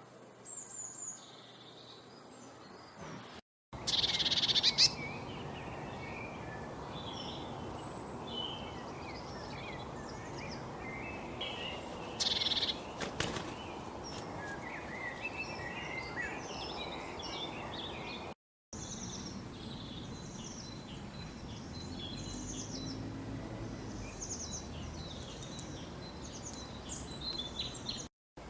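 Several birds chirping and calling in quick, overlapping short notes over a steady background hiss of outdoor ambience, with louder calls about four seconds in and near the middle. The sound drops out briefly twice where the recording is cut.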